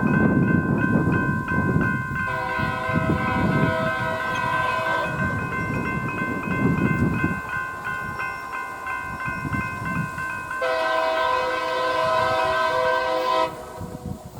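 Multi-chime train air horn held in a long continuous blast over the low rumble of a passing train, growing fuller about two seconds in and again near the end, then cutting off about a second before the close.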